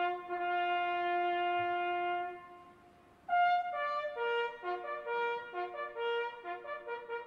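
Solo brass instrument playing a slow tune: one long held note that fades away, a brief pause, then a new phrase of shorter notes.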